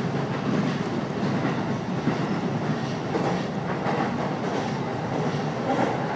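Commuter train running on its rails, heard from inside the passenger car: a steady rumble, with faint clicks of the wheels passing over rail joints every second or so.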